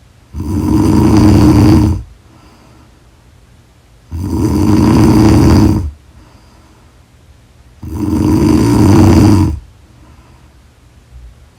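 Loud snoring in a slow, regular rhythm: three long snores, one about every 3.7 seconds, with quiet breaths in between and a fourth snore starting at the very end.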